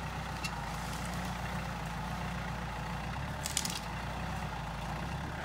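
Compact diesel tractor engine running steadily as the tractor pulls a log. About three and a half seconds in comes a brief crackle of snapping wood.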